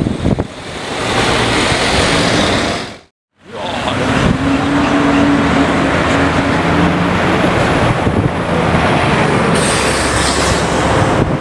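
Car engines and road noise of passing city traffic, cut off abruptly about three seconds in, then resuming with a steady engine drone.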